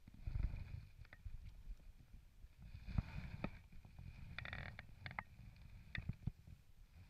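Muffled handling noise, low rumbling knocks and light water splashing as a small pike is lifted out of the lake by hand beside a float tube, with a few short sharp clicks as the fish and lure are handled near the end.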